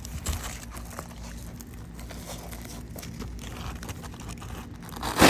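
Roof shingles being worked by hand, crackling and scraping, with scattered small clicks and a louder burst of scraping near the end.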